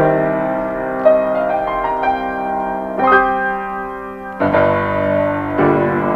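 Slow solo piano music: held chords with a few single notes over them, a new chord struck every one to three seconds.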